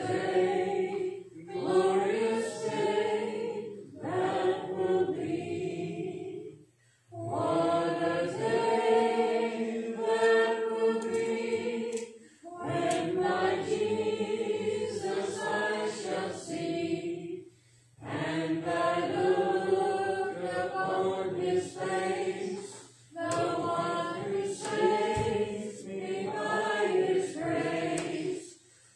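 Congregation singing a hymn a cappella, in phrases a few seconds long with short pauses for breath between them.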